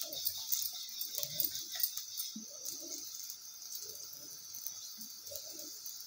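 Hands and a wooden rolling pin working a flour-dusted paratha on a wooden rolling board: soft rubbing and scattered light clicks, over a steady hiss.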